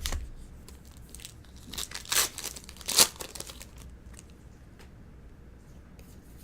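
A baseball card pack's wrapper being torn open and crinkled, with a few sharp rustles, the loudest about three seconds in.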